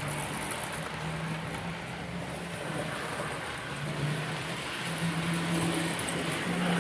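Small electric motor of a model railway locomotive whirring as it runs along the track, a low hum that wavers a little in pitch over the rattle of its wheels on the rails.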